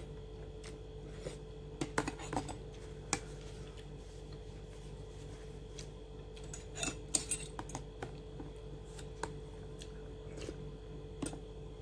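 Metal spoon clicking and scraping against a dish or food container in short clusters while eating, over a steady low hum.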